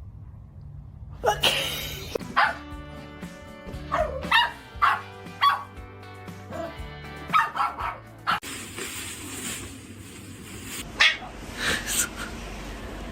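A dog barking repeatedly in short, sharp barks over background music.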